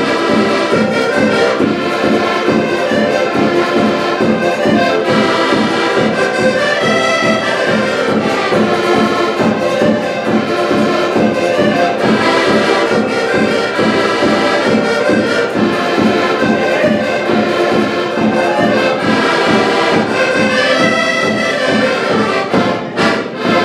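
Ensemble of diatonic button accordions playing a lively folk tune in unison with a steady beat. The tune ends with a few short closing chords just before the end.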